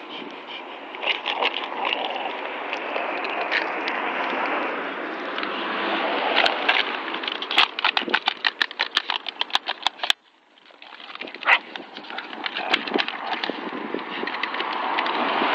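Staffordshire bull terriers and a Patterdale terrier growling in play as they tug at a plastic bottle between them. The bottle crackles in a quick run of clicks in the middle. The sound cuts out suddenly for a moment about ten seconds in.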